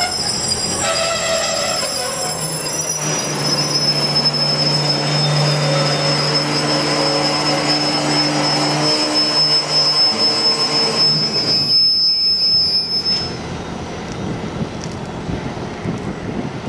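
Container wagons of a freight train rolling past at close range, wheels on the rails with a thin, high, steady squeal. The rolling noise and the squeal fade about thirteen seconds in as the passing sound eases.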